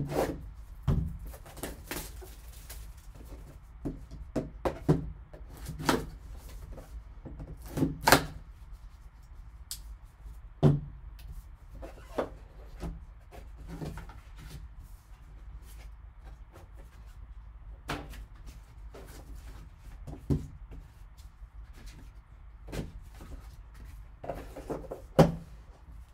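A sealed trading-card box being unwrapped and opened by hand: a blade cutting the shrink wrap, the lid lifted and cards handled, heard as scattered taps, clicks and rustles.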